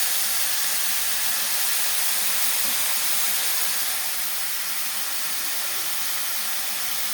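Chopped mushrooms sizzling as they shallow-fry in hot fat in a pan: a steady hiss that eases slightly about four seconds in.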